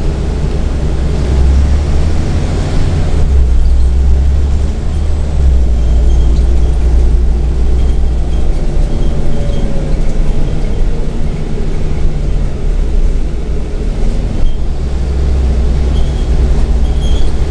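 Scania Omnitown (Scania N94UB) single-decker bus's engine and drivetrain running under way, heard from inside the passenger saloon as a loud, steady low drone. The engine note shifts once in pitch partway through.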